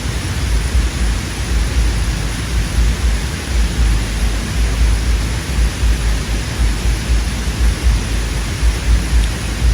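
Wind buffeting the microphone: a loud, gusty low rumble that rises and falls over a steady hiss.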